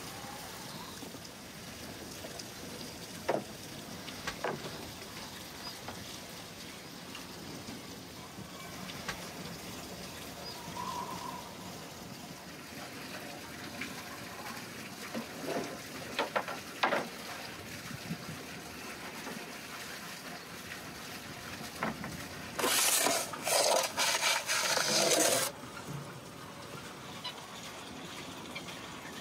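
Hand work on a floured wooden board: a few scattered light taps and knocks over a steady faint trickle of water, then near the end about three seconds of loud, dense scraping in several quick strokes.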